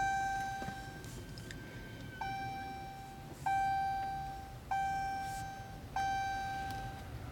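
Dodge Charger Hellcat's dashboard warning chime sounding five times, a bell-like tone about every second and a quarter, each one fading away.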